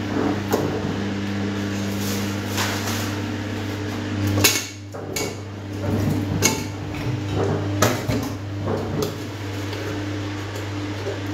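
Dishes and cutlery clinking and knocking as they are handled at a kitchen sink, with several sharp clatters, the loudest about four and a half seconds in, over a steady low hum.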